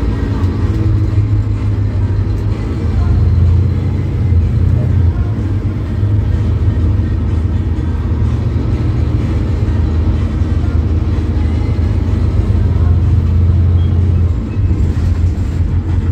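Scania K270UB bus's rear-mounted five-cylinder diesel engine running under way, heard from inside the passenger cabin as a steady low drone. The drone dips briefly near the end.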